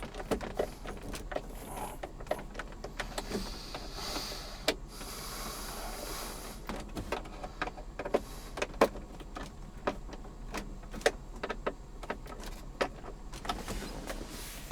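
Screws being tightened into plastic interior console trim: scattered clicks and ticks of the tool and trim, with a brief whirring stretch about four seconds in.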